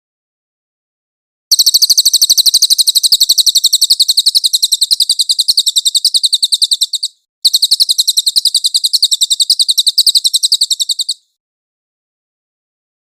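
A cililin singing two long, fast, high-pitched trills of repeated chirps. The first starts about a second and a half in and runs about five and a half seconds. After a brief break the second runs about four seconds, then the song stops.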